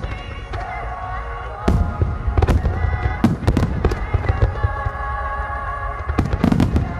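Fireworks display: sharp bangs from bursting shells and low fan-shaped barrages, several single reports, then a rapid cluster near the end, over music with sustained tones.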